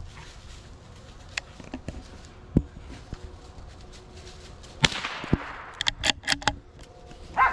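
A single rifle shot about five seconds in, with a short echo trailing off, followed about a second later by a quick run of sharp clicks and knocks. A lone sharp knock comes earlier, a couple of seconds before the shot.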